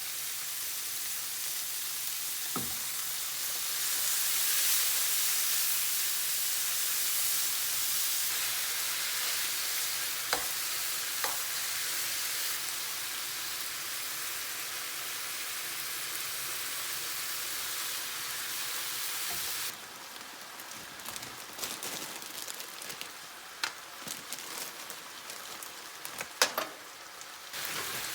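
Food sizzling in oil in a frying pan, a steady hiss. About two-thirds of the way through the sizzle turns quieter and scattered clicks and taps of a cooking utensil come in.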